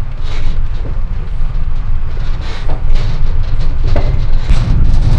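Small tourist road train riding along, heard from a seat inside its open-sided carriage: a heavy steady rumble with scattered rattles and knocks from the wagon.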